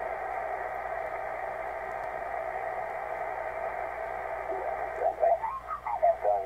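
Yaesu FT-450D HF transceiver receiving the 80-metre band in lower sideband while the dial is tuned upward: steady band hiss and static through the narrow receive filter. About four and a half seconds in, a single-sideband voice station comes in, garbled and sliding in pitch, then becoming speech-like as the tuning settles.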